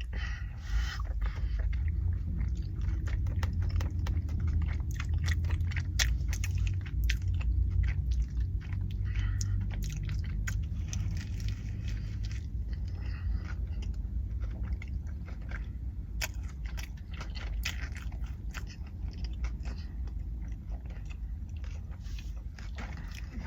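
A person chewing and biting a bacon and egg McMuffin close to the microphone, with a steady run of short mouth clicks and smacks.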